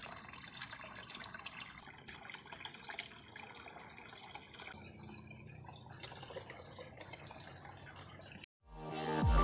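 Water trickling with a patter of irregular drips. Near the end it cuts out briefly, and electronic music with deep falling bass sweeps begins.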